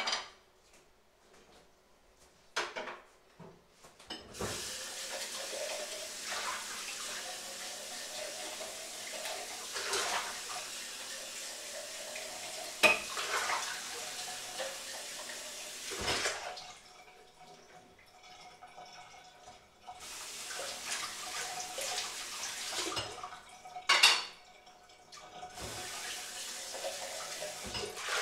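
Kitchen tap running into a sink during washing-up, with dishes and pans clanking now and then. The water stops for a few seconds past the middle, then runs again.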